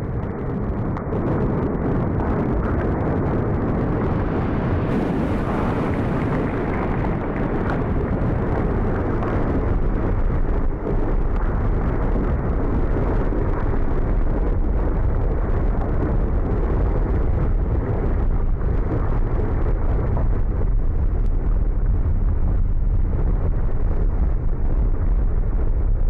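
Loud, deep, continuous rumble of a volcanic eruption, steady throughout with no distinct blasts.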